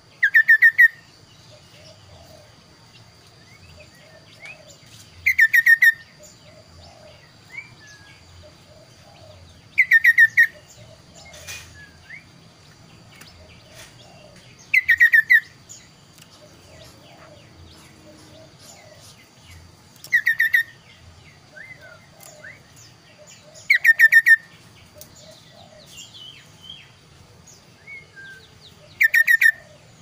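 A caged kaso-kaso songbird calling: seven loud, short phrases of fast repeated notes, each under a second long, coming about every five seconds, with soft chirps in between. A faint steady high whine runs underneath.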